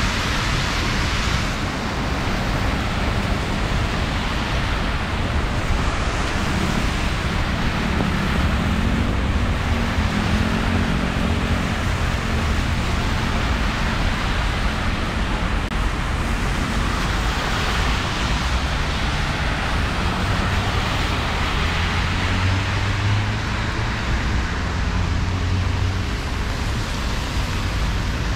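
Heavy rain falling steadily, with cars passing on the wet road. An engine hum rises and passes about a third of the way in, and another low hum comes near the end.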